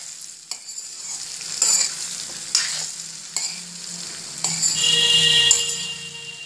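Metal spoon stirring and scraping sliced carrots around a metal kadhai, strokes about once a second, over a sizzle of warm mustard oil. A faint steady tone sounds in the second half.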